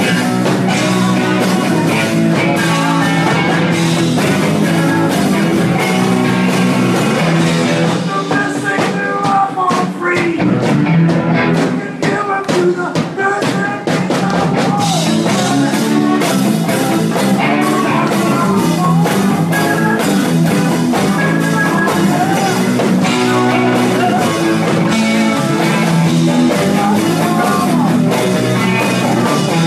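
Live rock band playing, with electric guitar and drum kit.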